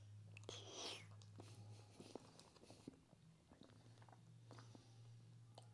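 Faint chewing and small wet clicks of someone eating soft lasagna with his fingers, over a low steady hum.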